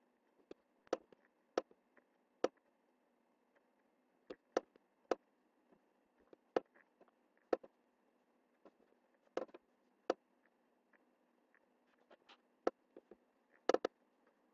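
Computer mouse buttons clicking: sharp, irregular single clicks, one or two a second, with a few quick double clicks, over a faint steady hum.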